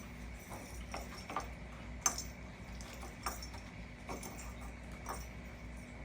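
A cat toy clicking and clattering irregularly as cats bat it about, with the sharpest knock about two seconds in.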